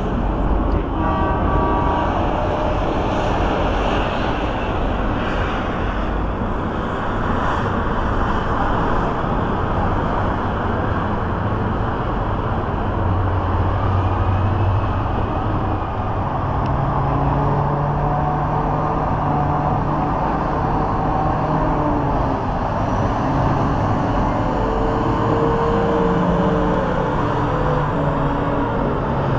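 Mining haul truck's big diesel engine running as the truck drives past, under a steady rushing noise; the engine note steps up in pitch about halfway through.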